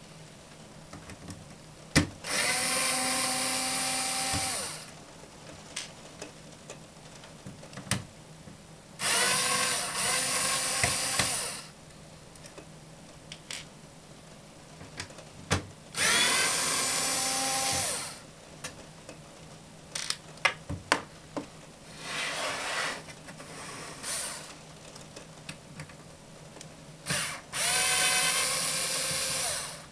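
A small cordless screwdriver whirs in five runs of about two seconds each, backing screws out of a NAS enclosure. Each run rises briefly in pitch and then holds steady. The fourth run is quieter. Small clicks and taps of screws and parts come between the runs.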